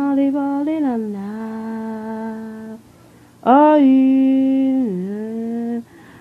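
A woman humming a slow tune in two long held phrases. Each phrase slides down to a lower note and holds it, and there is a short pause between the two.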